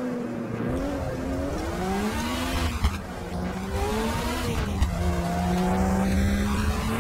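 Simulated race car engine in a driving video game, revving with its pitch rising and falling, then holding steady near the end.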